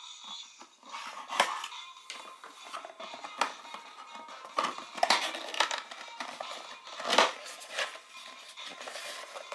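Cardboard box being torn and pried open, its lid flaps pulled back: a handful of short, sharp tearing and scraping sounds of card, the loudest about seven seconds in, over background music.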